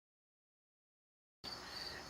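Dead silence, then about one and a half seconds in, faint steady background hiss starts abruptly, carrying a thin, steady, high-pitched tone.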